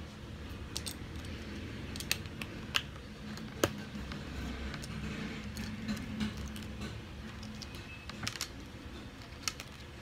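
Small plastic building bricks and minifigure parts clicking and clattering against each other and the wooden table as they are picked through by hand. The clicks come irregularly, the sharpest a little under four seconds in.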